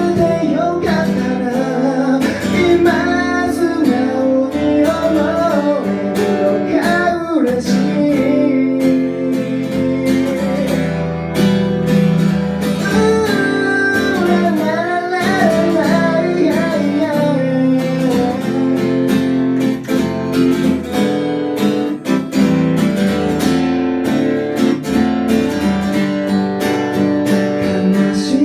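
Acoustic guitar strummed under a singing voice carrying a gliding melody: a song being performed.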